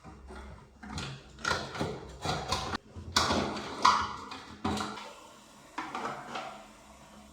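A quick string of knocks, clicks and scrapes of hard plastic parts being handled and fitted, as in reassembling a Geberit concealed cistern's flush mechanism; the loudest knock comes about four seconds in, and it quietens near the end.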